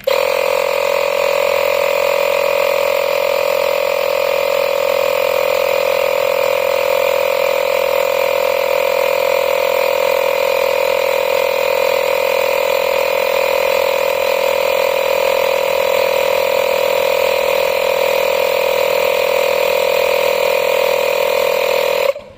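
Makita DMP180 18V cordless inflator's compressor running with a steady, loud buzz. It starts abruptly and cuts off suddenly about 22 seconds in.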